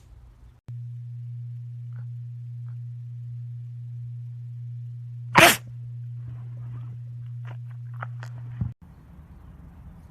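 An animal sneezes once, sharply and loudly, about halfway through, followed by a few fainter short sounds, over a steady low hum.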